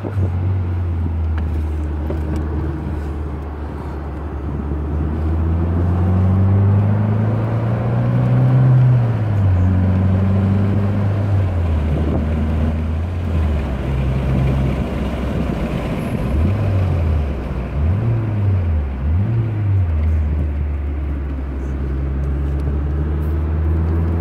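Alfa Romeo 164's engine heard from inside the cabin on a fast lap, the note climbing as it pulls and falling back at gear changes. About two thirds through, it dips and rises three times in quick succession.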